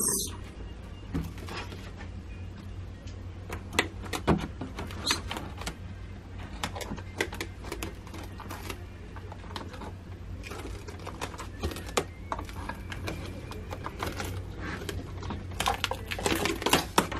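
Plastic cling wrap crinkling and crackling in irregular clicks and rustles as it is stretched and pressed around the rim of an aluminium steamer pot, over a steady low hum. The crackling is busiest near the end.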